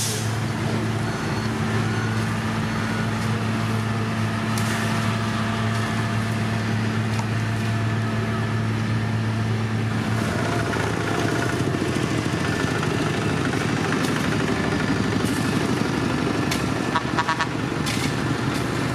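Diesel engines of a road paver and a dump truck running steadily at work, with a low steady hum that fades about ten seconds in. A short rattle of ticks comes near the end.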